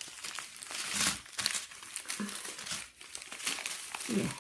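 Small plastic bags of diamond-painting drills crinkling and rustling as they are handled and spread out, an irregular run of sharp crackles.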